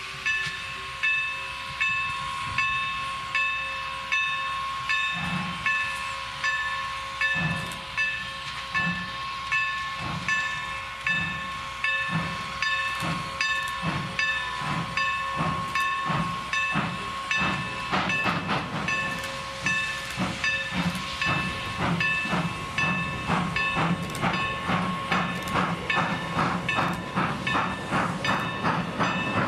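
Two steam locomotives, Norfolk & Western J-class 4-8-4 No. 611 and 4-8-0 No. 475, working hard together with a passenger train, their exhausts chuffing in a steady beat that grows quicker and denser toward the end. A steady high ringing tone sounds beneath the chuffs for much of the time.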